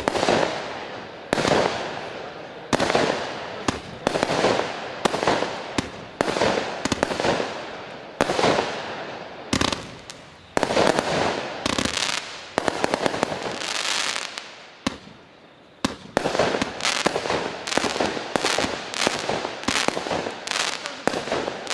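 A 66-shot consumer fireworks cake firing shot after shot, a little over a second apart, each a sharp bang trailing off into fading crackle. After a brief lull about two-thirds of the way through, the shots come faster.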